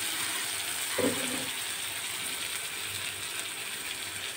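Onions and ginger-garlic paste sizzling in hot oil in an aluminium kadai, with a metal spatula scraping against the pan once about a second in.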